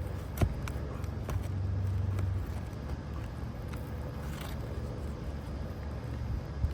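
A steady low rumble, swelling for about a second near the start, with a few sharp clicks and light scrapes of a steel pry bar working roofing nails out from under brittle 3-tab asphalt shingles.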